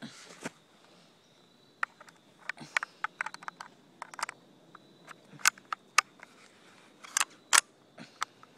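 .22 semi-automatic rifle firing Thunderbolt .22 rimfire rounds: a string of sharp cracks at uneven spacing, the loudest ones from about five and a half to seven and a half seconds in.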